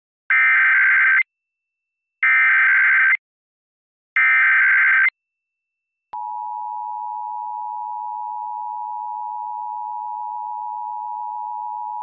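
Emergency Alert System SAME header: three bursts of warbling digital data tones, each about a second long and two seconds apart. About six seconds in the steady dual-tone EAS attention signal starts, sent for a Required Monthly Test.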